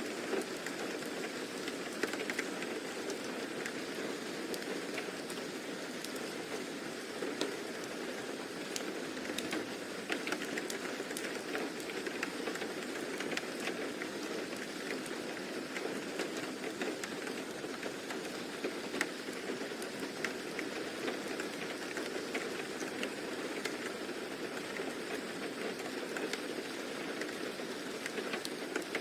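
Steady rain falling, a continuous hiss with scattered sharp drop ticks throughout.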